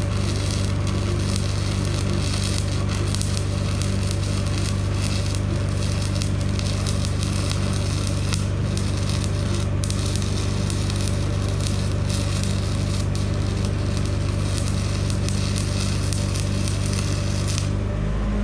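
Stick-welding arc crackling steadily while a weld bead is run, over the steady hum of the welding machine. The arc breaks off shortly before the end, leaving the hum.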